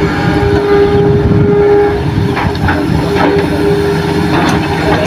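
Hitachi hydraulic excavator's diesel engine working under load with a steady whine as it lifts and swings a bucket of soil. From about halfway in come a few knocks as soil and rocks drop into the dump truck's steel bed.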